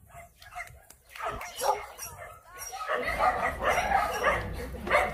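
Dogs barking, starting about a second in and getting louder and busier from about three seconds in, with people's voices mixed in.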